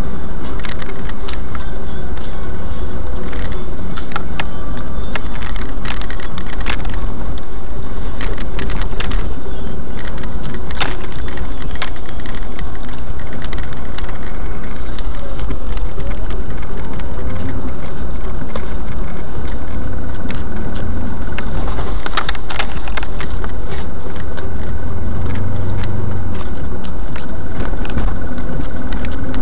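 A car driving, running steadily with a low rumble, with many small clicks and rattles throughout.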